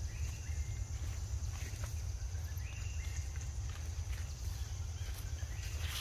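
Forest-floor ambience: a steady high-pitched hum and a low rumble, with a few short high calls and light rustles among the leaves.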